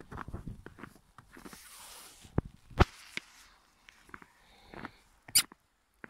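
Snow crunching underfoot in uneven steps, with a loud sharp click about three seconds in and another near the end.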